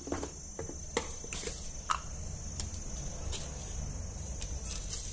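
A few light knocks and clinks of seasoning containers and a spoon being handled on a kitchen counter, three sharp ones in the first two seconds, over a steady high insect chirring.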